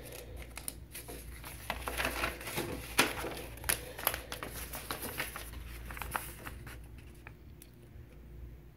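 A paper instruction leaflet being handled and unfolded: crinkling and rustling with sharp little crackles, dying down near the end.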